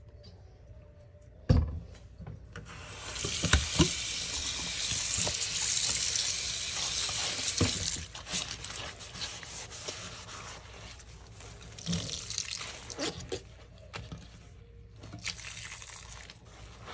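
Tap water running into a sink onto sponges and dish soap, loudest for several seconds after a single knock near the start, then quieter, with hands splashing in the sudsy water.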